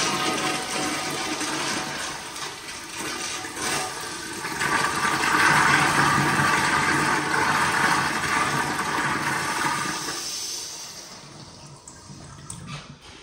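Toilet flushing: water rushing through the bowl and down the drain, loudest in the middle, then dying away over the last few seconds.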